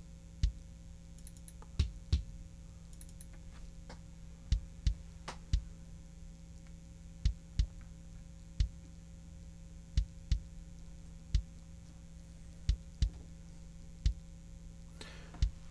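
A soloed kick drum track playing back, its hits replaced by a sampled DW kick drum triggered with the Drumagog plugin. It plays an irregular pattern of single and closely paired thumps, a little over one a second.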